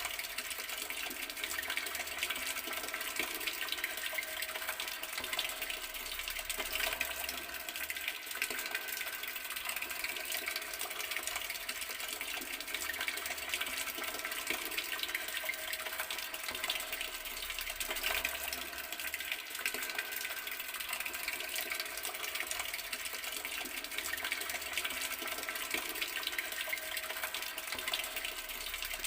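Garden water tap running in a steady stream, the water splashing continuously and evenly.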